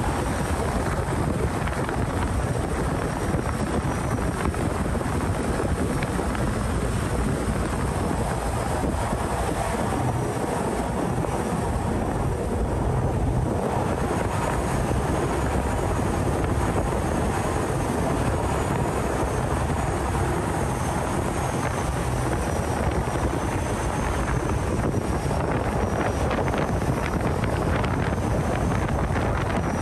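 Canal express boat's engine running loud and steady while the boat is underway, with wind noise over it.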